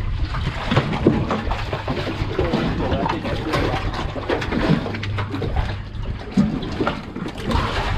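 Water splashing and sloshing around a small fishing boat, with irregular knocks and a low steady hum underneath.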